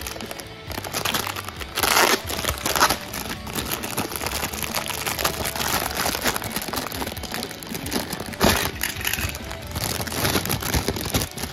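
Thin clear plastic bag crinkling and crackling as Plarail toy train cars are handled inside it and worked out of it. There are louder crackles about two seconds in and again past eight seconds.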